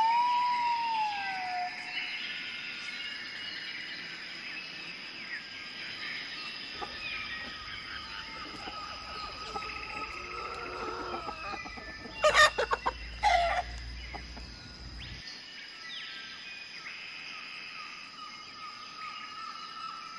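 A blue-and-yellow macaw call that rises and then falls in pitch at the start, over background bird chirps. Then chickens and roosters clucking, with two loud calls about twelve to thirteen seconds in.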